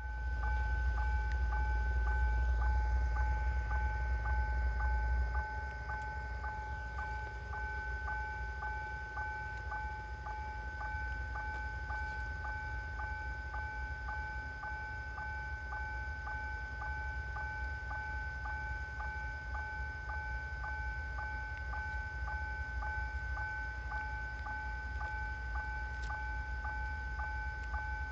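A steady high electronic hum in two pitches, with a faint regular tick about twice a second, over a low rumble that drops in level about five seconds in.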